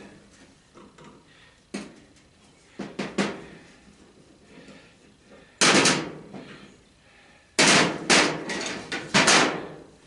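Hard metal knocks on a brass faucet part, about seven blows in irregular groups: a single one, a quick pair, a longer clattering one, then three more.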